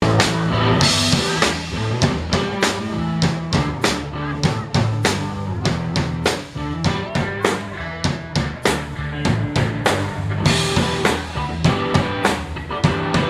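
Live band playing at a sound check: drum kit with bass drum, snare and rimshots over bass and sustained pitched chords, with cymbal crashes twice.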